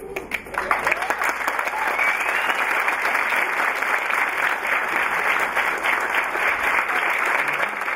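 Audience applause, a dense patter of many hands clapping that builds up within the first second and then holds steady.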